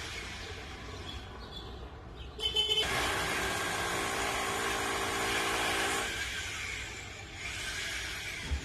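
Electric demolition hammer running in one burst of about three seconds, starting a little before the middle with a short rapid stutter and then holding steady before dying away.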